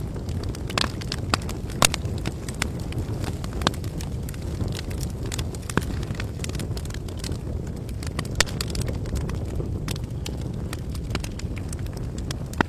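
Wood fire burning: irregular sharp crackles and pops over a steady low rumble.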